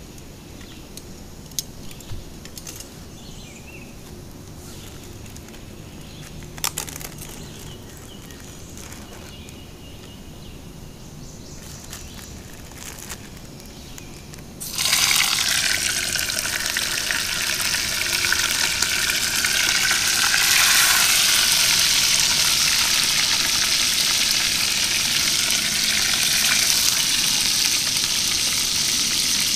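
Catfish fillets laid into hot bacon grease in a camp frying pan, starting a loud, steady sizzle suddenly about halfway through, after a quieter stretch with a few light clicks. The sizzle gets a little louder again several seconds later.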